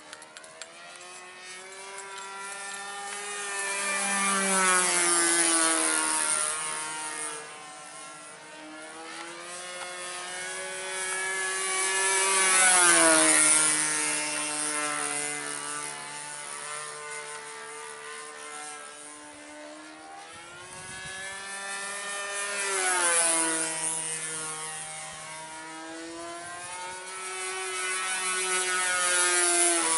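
Evolution 15cc two-stroke gasoline engine on a Hangar 9 Ultra Stick RC plane, turning a 13x6 propeller in flight. It makes about four passes overhead: each time the buzz grows louder, then drops in pitch and fades as the plane goes by.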